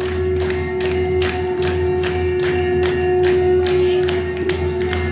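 Devotional music accompanying an aarti: one steady held note over a regular beat of struck percussion, about two and a half strikes a second.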